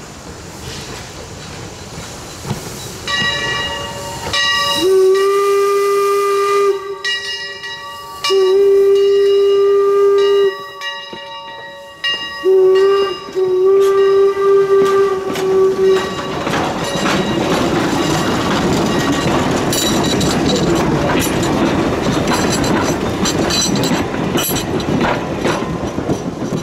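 Pennsylvania Railroad 331, a replica 4-4-0 steam locomotive, blows its steam whistle in several blasts, three of them long, as it approaches and passes close by. Its wooden coaches then roll past with a steady rush and the clicking of wheels over the rail joints.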